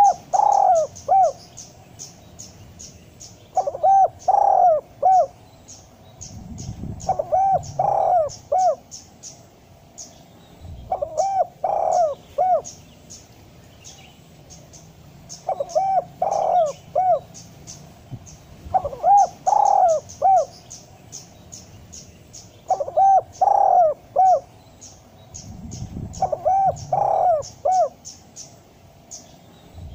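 Spotted dove (derkuku) cooing: a short phrase of three or four cooing notes, repeated about every four seconds, eight times. Faint, rapid high chirping runs behind it.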